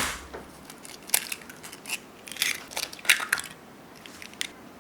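A sharp knock, then a run of irregular short crackling clicks.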